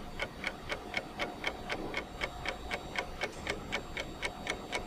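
Rapid, even ticking like a clock, about six or seven ticks a second, with a faint steady tone underneath.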